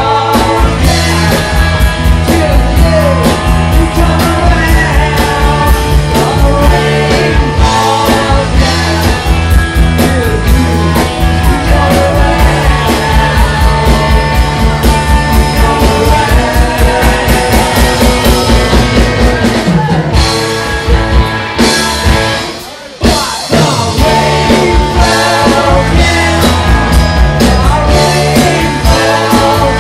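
Live psychedelic rock band playing loudly: electric guitars, bass and drums under a held, bending lead line. About three quarters of the way through, the band breaks off for about a second, then crashes back in.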